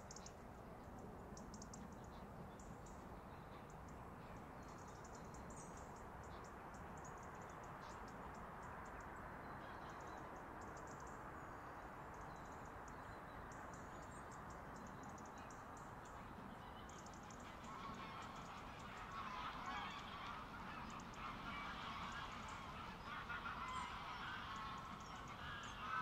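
Geese honking. They come in a little past the middle and grow louder toward the end, over a steady low background noise.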